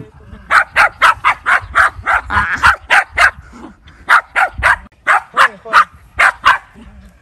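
Young West Highland White Terrier barking in quick, high, yappy barks, about three a second with a couple of short pauses, excited at a burlap sack being teased in front of it.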